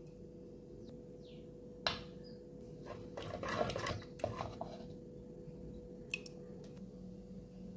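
Wooden spoon stirring and mashing cooked bottle gourd in a clay pot. A sharp knock comes about two seconds in, then a couple of seconds of wet scraping and squishing, then a few lighter knocks of the spoon against the pot.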